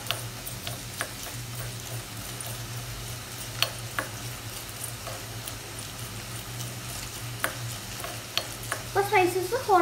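Metal spoon stirring whole spices (black peppercorns, cardamom pods, cinnamon stick) dry-roasting in a small nonstick pan. The spoon and spices make sparse light clicks and scrapes against the pan over a steady low hum.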